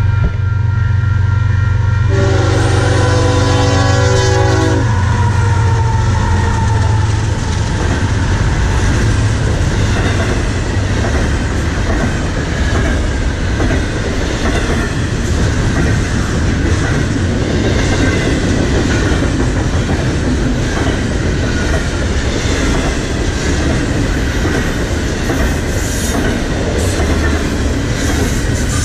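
Diesel freight locomotives pass close by, their horn sounding a chord for about three seconds a couple of seconds in. Then a long double-stack container train follows, its wheels rumbling and clattering steadily over the rails, with sharper clicks near the end.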